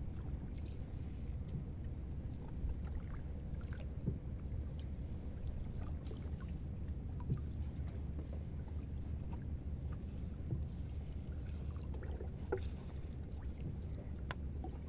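Wet nylon gillnet being hauled by hand into a small boat: water trickling and dripping off the mesh, with a few small knocks over a steady low rumble.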